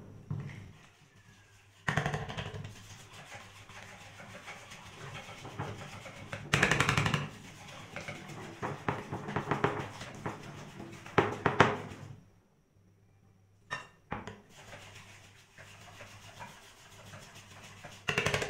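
Metal fork beating flour-and-water batter in a stainless steel bowl: rapid clicking and scraping of metal on metal, with a short pause about two-thirds of the way through.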